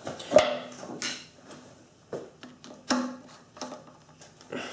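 Several separate metallic clicks and knocks, about one a second, some with a short ringing, as a screwdriver is fitted to and turns the lock screw on a South Bend drill press head.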